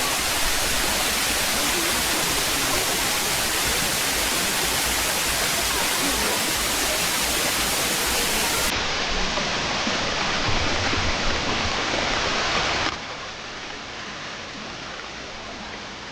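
Steady rush of water falling at Salad Dai waterfall. About three-quarters of the way through it drops suddenly to a quieter but still steady rush.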